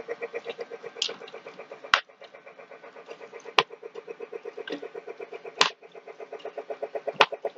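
Toy train running on its track: a steady motor hum pulsing rapidly at about six beats a second, with a few sharp louder clacks spread through it.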